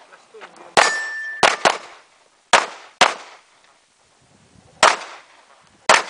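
Pistol shots fired in an uneven string, about seven in six seconds, some in quick pairs. A steel target rings briefly after a hit about a second in.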